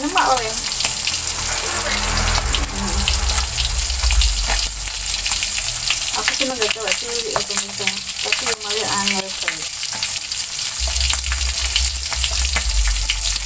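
Stone pestle (ulekan) crushing and grinding raw chillies, shallots and salt against a stone mortar (cobek) for sambal terasi. It makes a steady, dense crackling and scraping.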